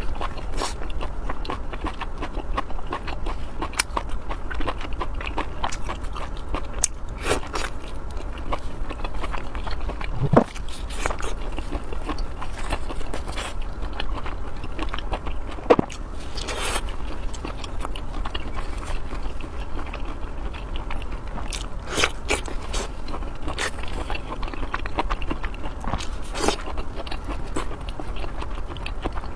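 Close-miked eating: a person chewing and biting with wet mouth smacks and many short, sharp clicks, over a steady low hum.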